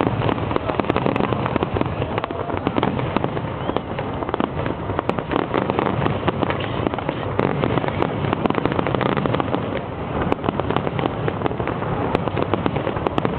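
Fireworks display going off nonstop: a dense run of overlapping pops and crackles, with no break.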